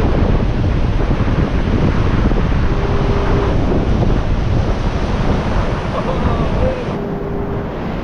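Pacific Ocean surf washing steadily onto a beach, with wind buffeting the microphone. The hiss thins a little about seven seconds in.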